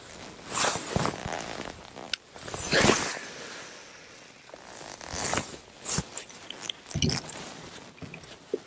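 Baitcasting rod and reel being cast and retrieved: a series of short raspy whirring and swishing sounds, the loudest about three seconds in, with a few light clicks.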